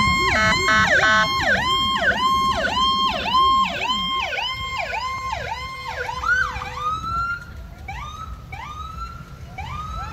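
Fire truck's electronic siren cycling quickly down and up, about two sweeps a second, loudest at first and fading over the first half as it moves away. Slower, quieter rising siren whoops follow in the second half.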